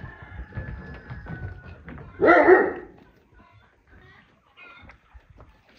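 A single loud animal call lasting under a second, a little over two seconds in, over low rustling.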